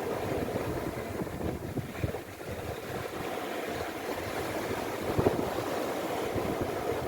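Sea waves washing on the shore, a steady rushing noise, with wind rumbling on the microphone and two brief louder knocks about two and five seconds in.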